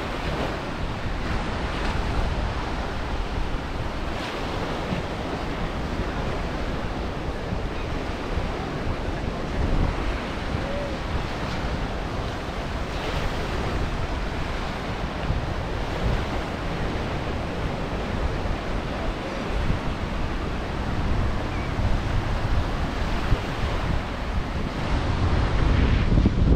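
Ocean surf washing onto the beach, with wind rumbling on the microphone, the wind getting stronger near the end.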